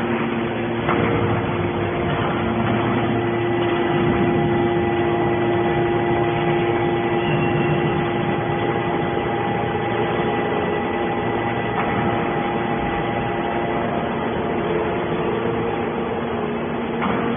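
Hydraulic scrap metal baler running: a steady machine drone with a constant whine held on several pitches, and a few faint knocks.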